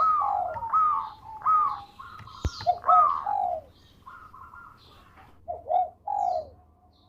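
Zebra dove (perkutut) cooing: a quick run of repeated rolling coo notes, then a pause and a few more notes near the end. A single sharp click sounds about two and a half seconds in, and fainter high chirps come and go.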